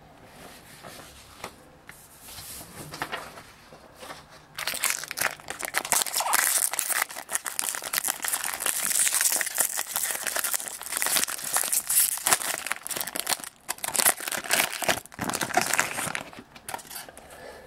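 Foil wrapper of a Topps baseball jumbo pack crinkling and tearing as it is opened by hand. There is soft rustling at first, then dense crackling for about twelve seconds starting some four seconds in.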